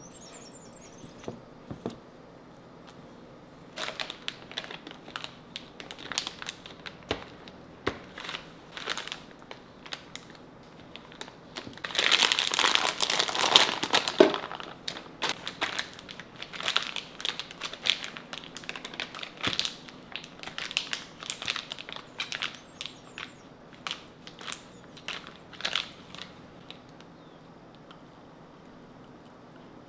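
Handling noise while baking: a scatter of short crinkling, scraping clicks, with a loud, dense stretch of crinkling about twelve seconds in that lasts roughly two seconds. The clicks thin out and stop a few seconds before the end.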